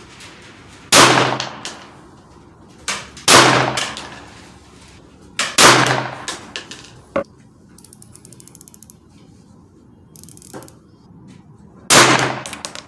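Four gunshots a few seconds apart, each with an echoing tail, with small metallic clicks between them and a quick run of light ticks partway through.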